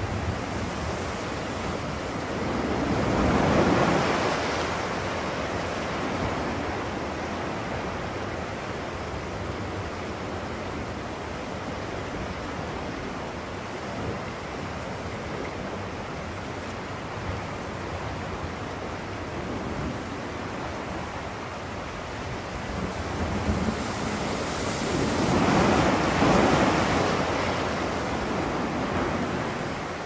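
A steady rushing noise that swells up twice, about three seconds in and again near the end, then settles back.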